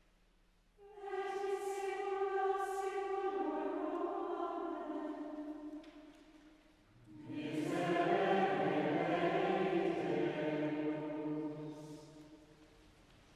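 Choir chanting plainchant psalmody in unison: one phrase begins about a second in, then after a short pause a second, fuller phrase with lower voices begins about seven seconds in and dies away near the end.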